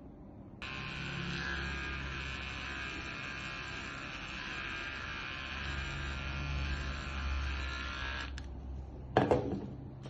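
Electric clippers buzz steadily for about eight seconds and then switch off. About a second later there is a single sharp clatter.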